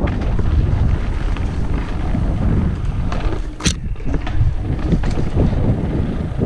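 Wind buffeting the microphone over the rattle and clatter of a mountain bike rolling over a dirt trail and onto wooden boardwalk planks, with a sharp knock a little past halfway.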